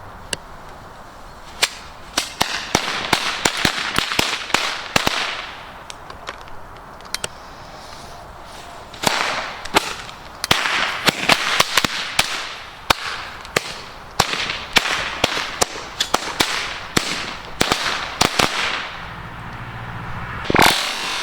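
Small firecrackers going off in quick, irregular runs of sharp cracks: one run from about two seconds in to about five seconds, a few lone bangs, then a longer run from about nine seconds to near the end.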